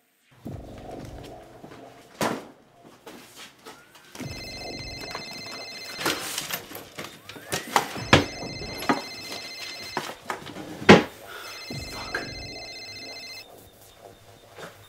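A telephone ringing in repeated bursts about two seconds long, four rings with pauses between, with several sharp knocks and thumps in between, the loudest about eleven seconds in.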